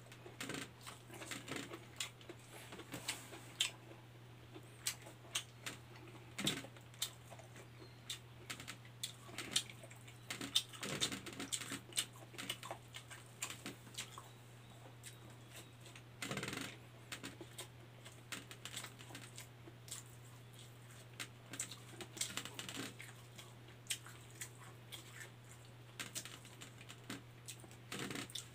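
Eating by hand at close range: irregular wet chewing and lip-smacking clicks as rice and dried fish are eaten, with fingers scooping food off a banana leaf, over a steady low hum.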